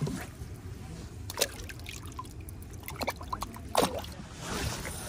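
Small freshly caught mackerel thrashing in a bucket of water, with sharp splashes and dripping, the loudest splash about four seconds in.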